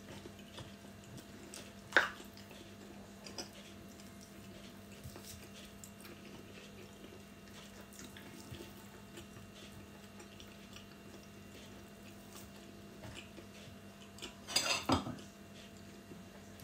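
Quiet eating sounds from a meal eaten by hand off a plate: a sharp click against the plate about two seconds in and a short, louder cluster of clicks and mouth noises near the end, over a faint steady hum.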